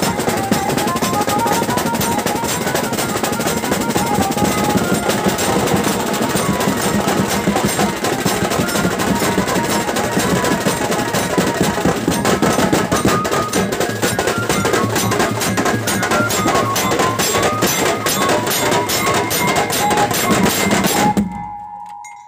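A procession drum band: several snare drums and a large bass drum beaten in a fast, dense rhythm, with a tune played over them. The sound drops away sharply about a second before the end.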